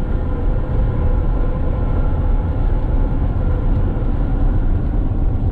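Steady low rumble of a camper van's engine and road noise, heard from inside the cab.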